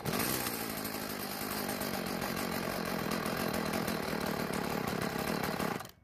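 Stihl FS36 trimmer's small two-stroke engine running after a pull start, then cutting out suddenly near the end. It keeps dying at idle, which the owner takes to mean the low-speed mixture is too lean and it needs a little more fuel.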